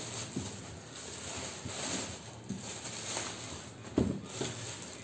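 Clear plastic wrapping crinkling and rustling as a hard plastic case is handled and unwrapped, with one sharp knock about four seconds in.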